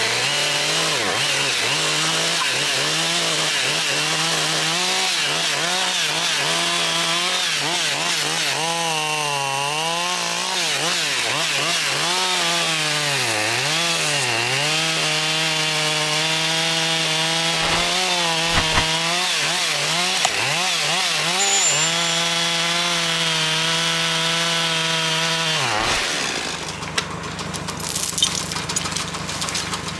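Husqvarna 550 XP Mark II two-stroke chainsaw bucking a felled tree. It runs at high revs, and the pitch sags each time the chain bites into the wood, then recovers. Near the end the saw cuts off and there is the clatter and rustle of branches and wood being handled.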